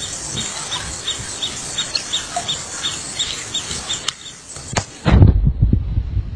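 Outdoor ambience with a steady hiss and a short high chirp repeating about three times a second. About five seconds in it gives way abruptly to loud low rumbling, like wind buffeting the microphone.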